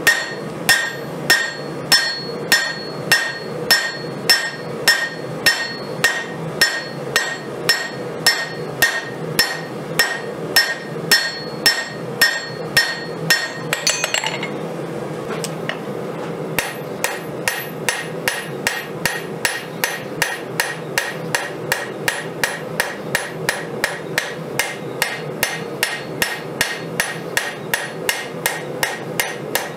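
Hammer striking hot 5160 steel on an anvil while forging a knife blade: steady blows about two a second, each with a ringing metallic tone. About halfway through they stop for a couple of seconds, then start again lighter and quicker, about three a second.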